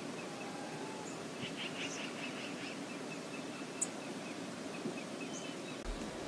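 Steady rush of river water flowing, with a brief run of faint bird chirps about one and a half seconds in and a couple of faint sharp ticks.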